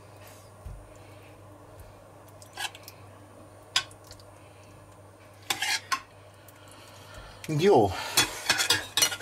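A metal spoon scooping thick minced-meat sauce from a stainless steel pan and spreading it into a glass baking dish, with a few sharp clinks of the spoon against the pan and dish. A voice speaks near the end.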